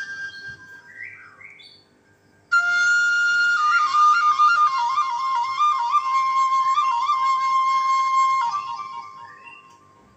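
Background music: a solo flute plays a slow melody. A held note dies away in the first two seconds, then after a brief gap a new phrase of ornamented notes with quick trills begins, stepping downward and fading out near the end.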